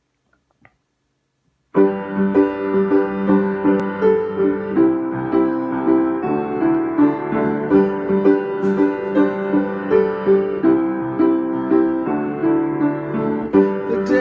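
Solo piano introduction to a song, played in a steady, even pulse of notes and chords that starts suddenly about two seconds in, after near silence.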